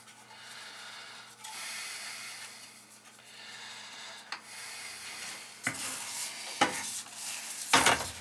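Scraping and rubbing of metal parts being handled on an oil burner, as the motor and pump are worked by hand while a new motor-to-pump coupling is fitted. A few light knocks in the second half and a louder clatter near the end.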